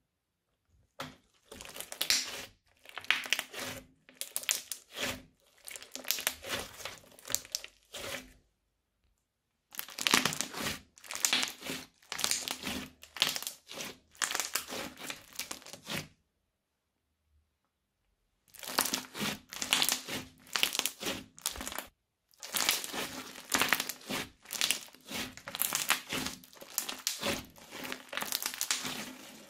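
Hands squeezing and kneading a crunchy, bead-filled slime, giving dense crackling and crunching. It comes in three long stretches broken by two short silences.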